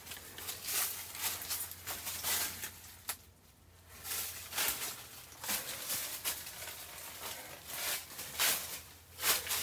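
Footsteps of a hiker walking on a woodland trail, about two crunching steps a second, with a brief pause about a third of the way through.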